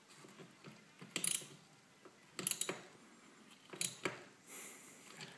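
Socket ratchet clicking in three short bursts, about a second and a half apart, as battery terminal nuts are tightened down.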